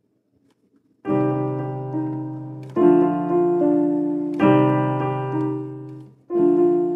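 Background music: slow piano chords, each struck and left to fade, a new one about every one and a half seconds after a second of silence at the start.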